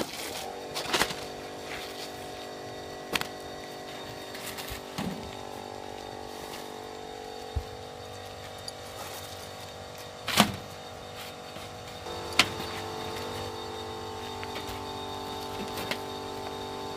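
Asphalt shingles being handled and set in place on a roof, with a sharp knock every few seconds, over a steady hum of several tones that changes about twelve seconds in.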